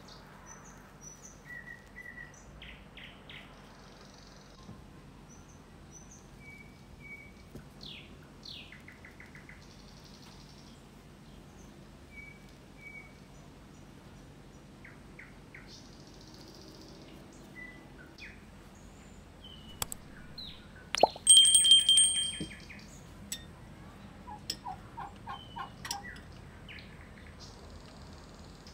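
Small birds chirping and calling on and off, with a few sharp clicks and one brief, much louder ringing sound about three-quarters of the way in.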